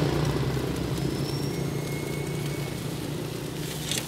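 An engine running steadily at idle, its low hum slowly fading, with a sharp click of metal tongs near the end.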